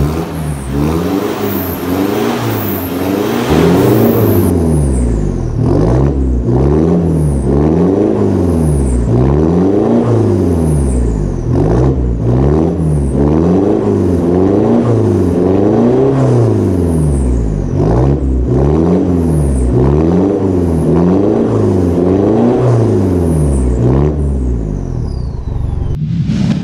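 Mitsubishi Montero Sport's diesel engine being revved over and over through an aftermarket turbo-back exhaust with twin tips. The pitch rises and falls about once a second, and the sound fades near the end.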